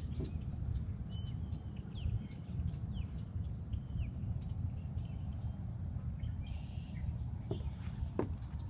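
Marsh birds giving short calls and chirps, mostly quick downward-sliding notes scattered throughout, over a steady low rumble. Near the end come a couple of footsteps on a wooden boardwalk.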